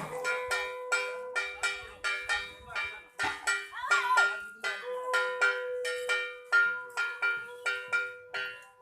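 Puja bell struck in quick, irregular ringing strokes, about three a second, with a conch shell blown in a long steady note over it; the conch breaks off about four seconds in and sounds again a second later.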